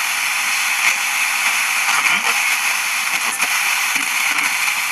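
Steady FM static hiss from a small portable multiband radio's speaker, its manual tuning wheel being turned between stations.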